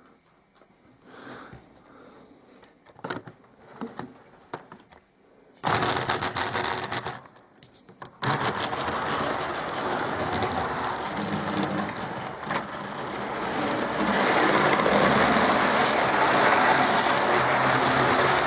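Hornby 'Smokey Joe' 0-4-0 model locomotive hauling 16 coaches, its load limit: a small electric motor whirring and wheels running on the rails. It starts about six seconds in after a few faint clicks, and gets louder as the train passes close near the end.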